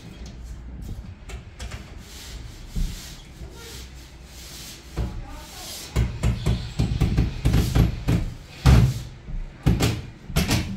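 Knocks, thuds and scraping from plasterboard installation work, irregular and getting busier and louder from about halfway through.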